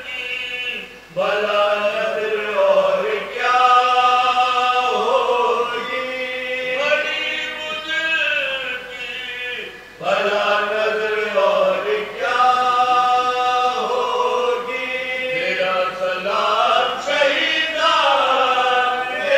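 Men chanting a marsiya, the Urdu elegy for Imam Husain, with no instruments. The voices hold long, wavering notes in drawn-out phrases, breaking briefly about a second in and again about ten seconds in.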